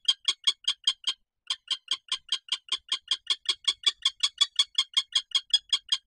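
Common kestrel calling, a fast, even series of sharp notes at about seven a second, with one short break about a second in.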